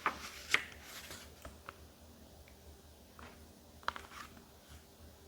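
A few faint rustles and soft taps of handling, spaced a second or more apart, over a quiet room.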